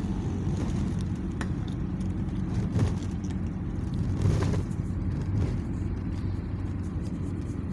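Car running on the road, heard from inside the taxi's cabin: a steady low rumble of engine and road noise, with a couple of brief knocks about three and four seconds in.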